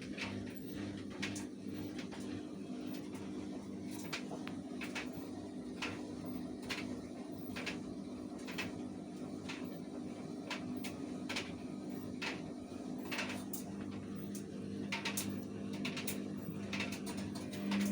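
Samsung washing machine running, a steady motor hum broken by irregular clicks and knocks: the motor jerking rather than turning smoothly.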